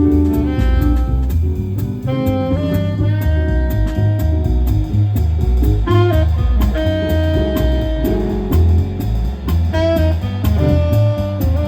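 Live jazz quartet playing: a saxophone melody of held notes over keyboard, bass and drum kit, with a steady bass line and regular cymbal taps.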